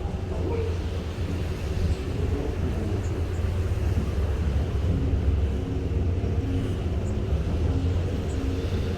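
Strong wind buffeting the microphone at sea over a steady low rumble, typical of a ship's engines running underway.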